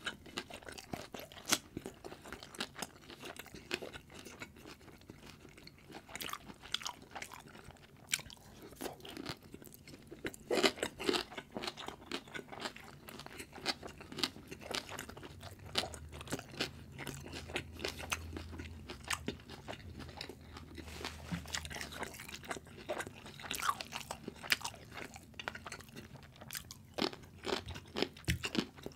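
Close-miked eating: chewing and crunching of food, with many irregular crisp clicks and wet mouth sounds and no talking.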